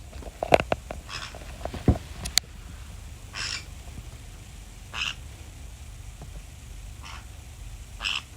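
Pet parrot giving five short calls spaced about one to two seconds apart, with a few sharp clicks and taps in the first two seconds.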